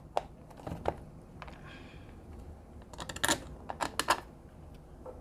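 Small clicks and taps of a screwdriver on the case screws of a VAS5054 PLUS car diagnostic interface as the case is screwed back together, coming in scattered clusters.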